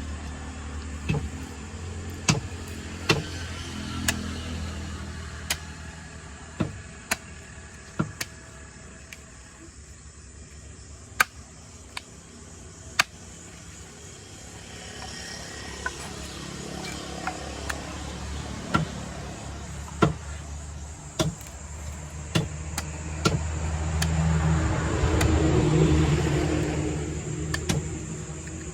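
Scattered sharp knocks, irregularly spaced a second or two apart, over a steady low rumble like engines or traffic. The rumble swells for a few seconds near the end.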